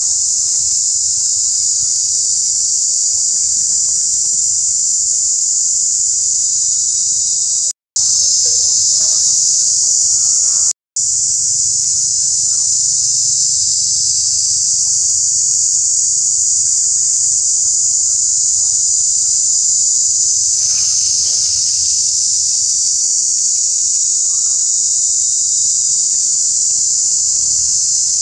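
Dense insect chorus: a loud, steady, high-pitched buzz that cuts out to silence twice, briefly, about eight and eleven seconds in.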